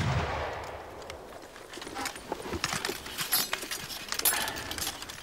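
The fading echo of a musket volley, then scattered metallic clicks and rattles from soldiers reloading flintlock muskets.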